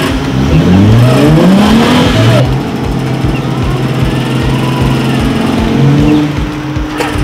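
Lifted Jeep Wrangler's engine revving up and down twice as it crawls up a muddy rut on a winch line, then holding a steady pitch under load from about two seconds in.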